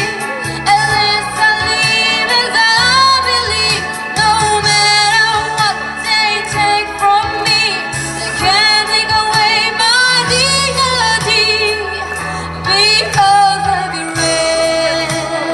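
A young woman singing solo into a handheld microphone over instrumental accompaniment with a steady bass line, amplified through the stage sound system.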